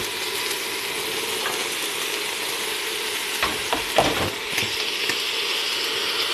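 Vegetables sizzling as they stir-fry in a metal pot while shredded cabbage is tipped in, with a few knocks and scrapes against the pot about three to four seconds in.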